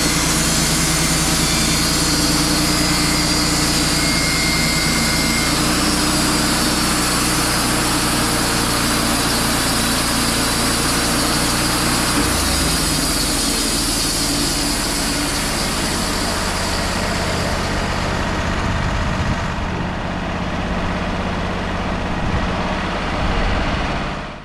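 Wood-Mizer LT35 band sawmill running, its engine going steadily while the band blade cuts through a cedar log. The hissy cutting noise eases off about eighteen seconds in while the engine keeps running, and the whole sound stops suddenly near the end.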